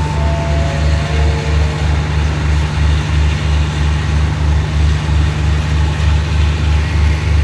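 Diesel engine of the stopped train idling: a steady low rumble that pulses about three times a second. Faint high notes step down in pitch in the first two seconds.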